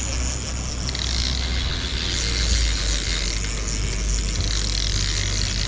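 Suzuki outboard motor running steadily: a constant low hum under an even hiss.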